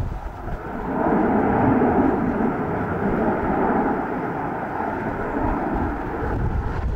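Airbus A320's CFM56 jet engines rumbling as it rolls out on the runway after touchdown. The noise swells about a second in and eases slightly after about four seconds.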